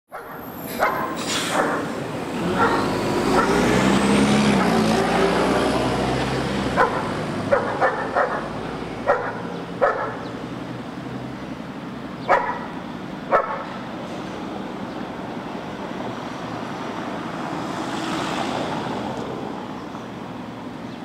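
Street traffic noise: a heavy vehicle runs past with a low rumble and a rising whine in the first few seconds, then a run of short, sharp sounds about a second apart.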